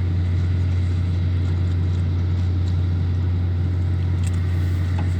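Steady low machinery hum, an even drone that never changes, with a couple of faint clicks near the end.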